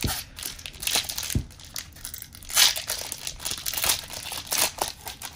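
Foil booster-pack wrapper crinkling as it is handled, irregular rustles and crackles with the loudest burst about two and a half seconds in.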